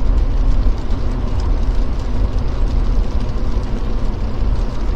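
Jeep Gladiator driving slowly on a sleet- and snow-covered road: a steady low rumble of engine and tyres, with faint scattered ticks.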